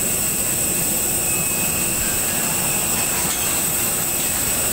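Jet aircraft turbine running: a steady loud rush with a high-pitched whine.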